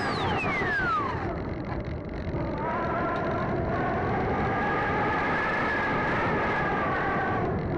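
Onboard sound of a Sky Surfer electric RC motor glider in flight: steady wind rush over the airframe, with the motor's high whine falling steeply in pitch in the first second as it is throttled back. About two and a half seconds in, a lower, steady motor hum comes in and holds, dipping again near the end.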